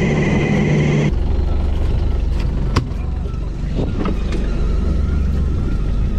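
An electric fishing reel's motor winds with a steady whine. About a second in it cuts to a boat's engine running with a low rumble, with a sharp click and a few soft knocks as bait fish is cut with a knife on a cutting board.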